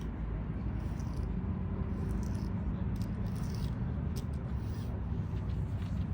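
Steady low rumble of outdoor background noise, with a few faint, light ticks scattered through it.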